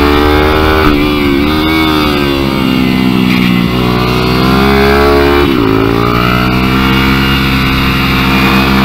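Onboard sound of a mini-bike engine on track, its pitch rising and falling as the rider accelerates, backs off for a corner and accelerates again, with wind rush over the microphone.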